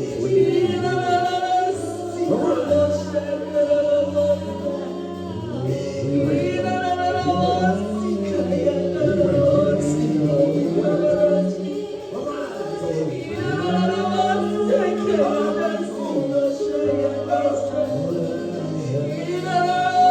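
Gospel praise and worship music: voices singing long, held notes over a steady instrumental backing.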